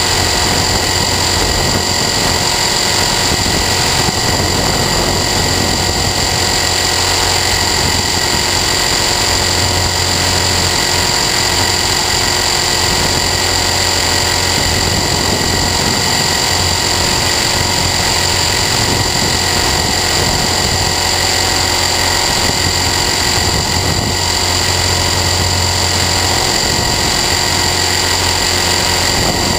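Align T-Rex 450 Sport electric RC helicopter in flight, heard through its onboard camera: a steady high whine from the brushless motor and gears over a constant rushing noise.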